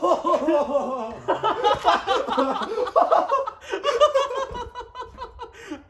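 People laughing hard, quick bursts of laughter following one after another without a pause.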